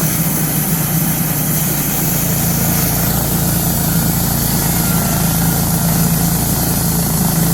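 Wood-Mizer LT10 portable band sawmill's gasoline engine running at a steady speed, with a strong low hum.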